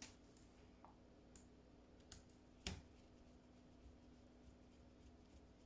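Near silence with a few faint, sparse clicks and taps, the loudest about two and a half seconds in, over a faint steady hum: small screws, a screwdriver and the laptop's screen panel being handled during a screen removal.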